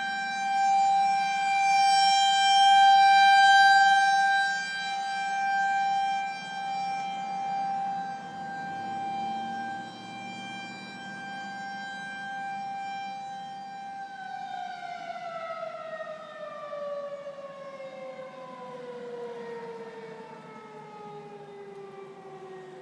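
Federal Signal outdoor warning siren holding a steady, high-pitched wail that swells and fades in loudness. About fourteen seconds in it winds down, its pitch falling slowly and its volume dropping.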